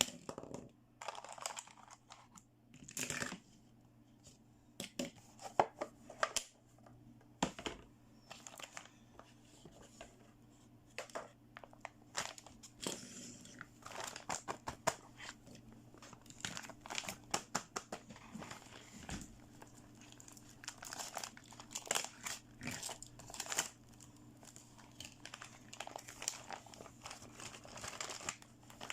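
Packaging of a toy doctor playset being unboxed by hand: irregular crinkling and tearing, with scattered sharp clicks and taps.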